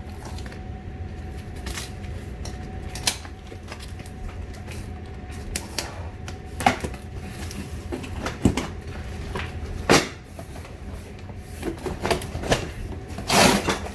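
Unpacking a boxed flat-pack shoe rack: scattered knocks and clatters of the parts and packaging being handled, with a longer scraping rustle near the end.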